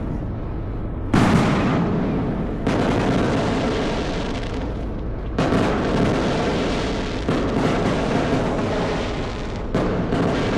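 Fireworks going off in a dense, unbroken barrage of crackling and booming, with fresh loud bursts starting five times, about every two seconds.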